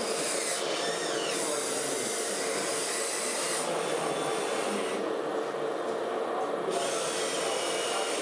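Whine of the small electric motor and gearbox of a radio-controlled model vehicle running, a steady tone with a few brief rises and falls in pitch over a noisy background.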